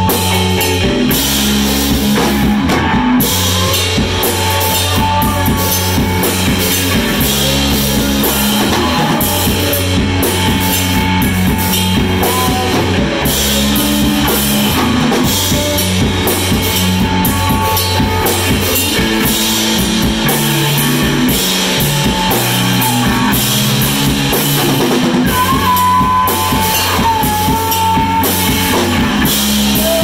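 Live rock band playing: two electric guitars and a drum kit, with a low repeating riff under steady drum and cymbal hits.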